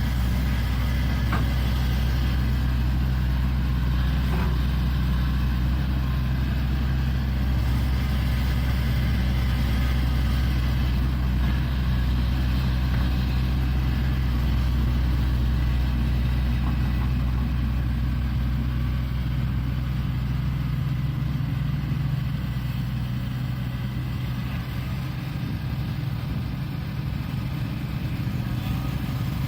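Shantui excavator's diesel engine running steadily with a deep, even hum, easing a little about two-thirds of the way through.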